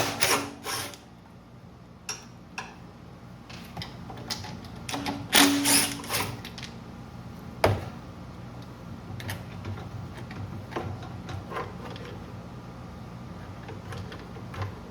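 Ratchet wrench with a 10 mm socket clicking in short spells, with small metal tool clatter, as nuts are worked loose on a small generator's carburetor and air box. The busiest clatter comes about five to six seconds in, and a single sharp knock follows near eight seconds.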